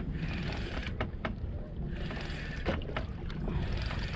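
Small outrigger boat under way: a steady low rumble, with water splashing against the hull in surges about every two seconds and a few sharp slaps.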